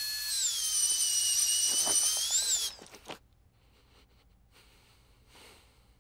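Dental drill whining at high pitch. Its pitch steps up about a third of a second in, wavers and briefly rises, then the drill cuts off before three seconds in. A click follows, then only faint room tone.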